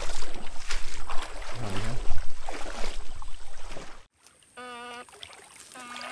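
Legs wading through a shallow stream, splashing with each stride, cut off suddenly about four seconds in. Then two short steady electric buzzes of one pitch as the fish-stunning rods are switched on in the water.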